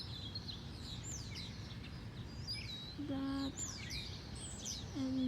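Several wild birds chirping and singing, with many short calls sweeping up and down in pitch, over a steady low outdoor rumble. A short, flat, voice-like hum comes about three seconds in and again at the end.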